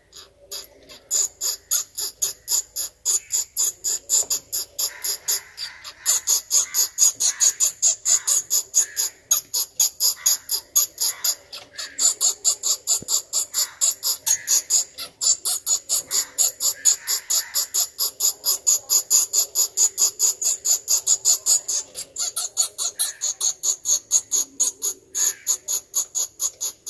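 A bat in a crack in a brick wall giving rapid, regular high-pitched squeaks, about five a second, with a couple of brief pauses.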